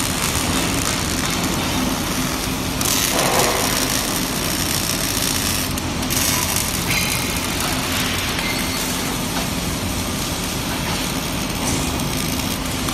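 Robotic arc welding: a steady crackling hiss from the welding arc, over a low steady hum. The hiss turns brighter for stretches of a few seconds, about three seconds in and again about six seconds in.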